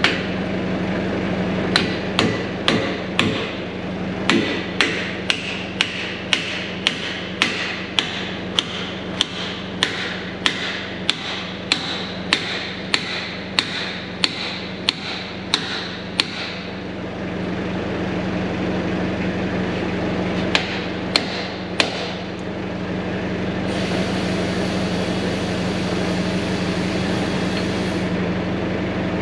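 Steel hand hammer striking the hydraulic cylinder mount of a John Deere 650H dozer. The blows come in a steady run of about two a second, each ringing like metal on metal, then pause, then come three more. A steady low hum runs underneath.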